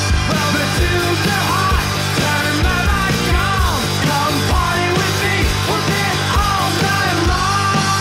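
Loud punk rock music: a band playing with drums, bass and electric guitar.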